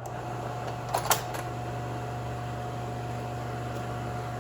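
Ansco Regent slide projector's cooling blower running with a steady hum and whir. Two sharp clicks come about a second in.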